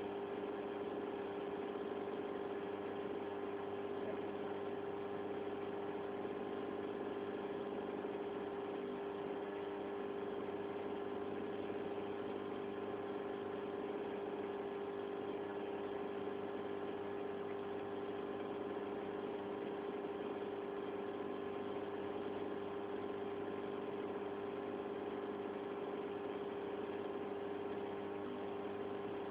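Steady, unbroken electric hum of an aquarium pump running, with one strong steady tone and fainter overtones.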